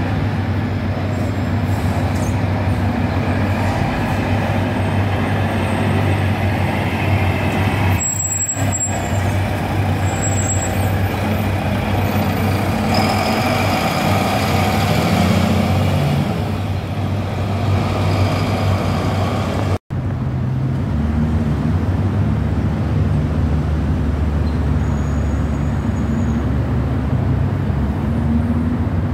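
Diesel engines of double-decker intercity coaches: one coach pulls past and away, its engine getting louder about halfway through. After a brief dropout about two-thirds of the way in, another coach's engine runs at a steady low hum.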